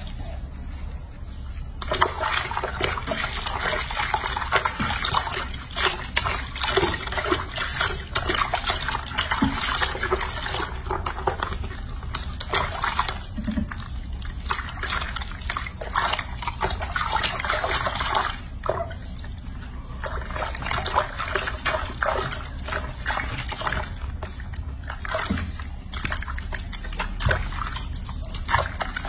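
Soapy water sloshing and splashing in a ceramic washbasin as hands scrub a baby monkey. It starts about two seconds in and comes in spells with a couple of brief lulls, over a steady low hum.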